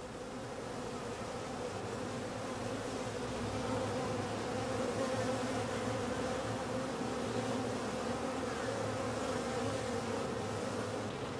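Many honeybees buzzing together in a steady hum, growing a little louder about four seconds in.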